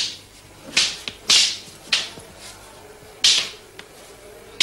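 A fighting stick swung hard through the air in Kalaripayattu sparring, about five sharp swishes in quick succession with a few light knocks between them.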